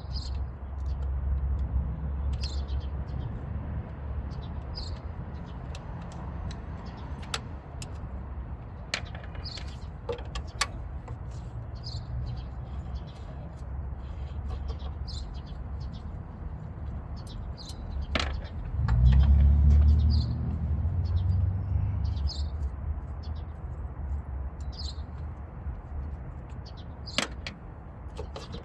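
Low vehicle rumble that swells louder about two-thirds of the way through, with birds chirping throughout and a few sharp clicks.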